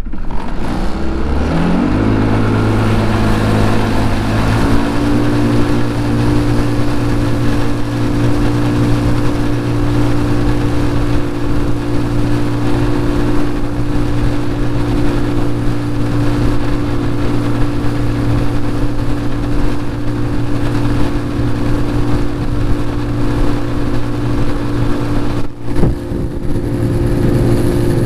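The motorized kayak's outboard motor speeds up from a start, its pitch rising over the first few seconds. It then runs steadily at speed, with a rush of wind and water.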